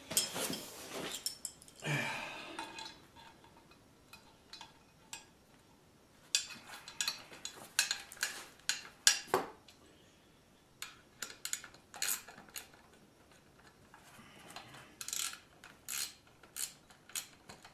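Metal clinking and clicking of a half-inch wrench on a 5/16 nut and bolt through a garage door opener's metal rail, in short runs of quick clicks with quieter pauses between. A rustle at the start as he kneels down on cardboard.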